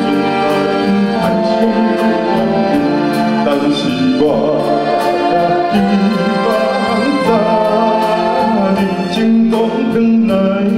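Bass-voiced male singer singing a Taiwanese song live into a microphone over band accompaniment, holding long notes with vibrato.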